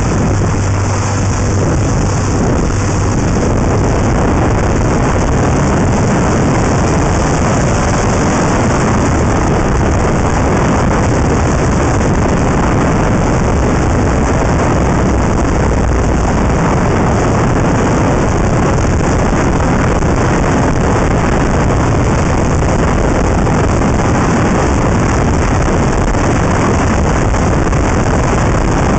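Steady, loud wind rush on the microphone of a camera mounted outside a moving Honda Integra Type R, mixed with tyre and road noise.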